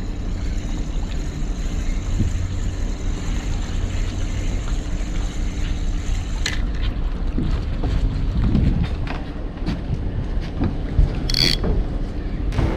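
Spinning reel being cranked while jigging a metal jig, its gears ticking, over a steady low rumble with wind on the microphone. A thin steady whine in the background stops about halfway through.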